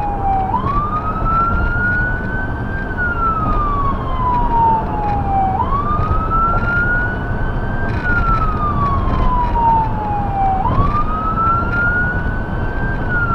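Emergency-vehicle siren on a 2017 Ford Explorer Sport response vehicle sounding a wail: a quick rise, then a slow fall, repeating about every five seconds, over steady road and engine noise.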